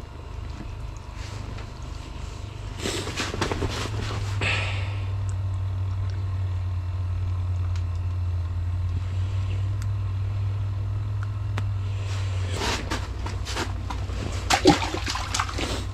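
Rustling of winter-jacket sleeves and handling noises as a fish is held and unhooked, coming in clusters about three seconds in and again near the end, over a steady low rumble.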